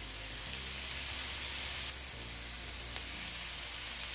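Diced onions, carrots and celery sizzling in olive oil and chicken juices in a skillet: a steady frying hiss.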